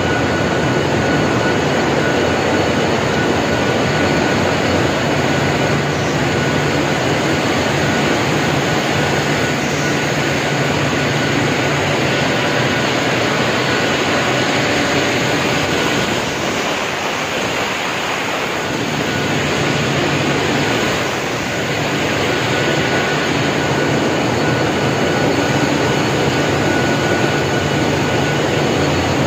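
Loud, steady din of poultry slaughter-line machinery (scalder, pluckers and the overhead shackle conveyor), with a thin steady whine running through it.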